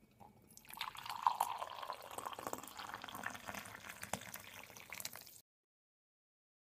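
Hot coffee poured in a steady stream from a glass coffee pot into a mug, splashing and gurgling. The sound cuts off suddenly about five seconds in.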